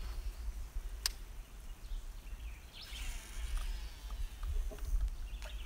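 A fishing rod being cast: a sharp click about a second in, then a soft high whir about three seconds in as the line runs off the reel, over a steady low rumble.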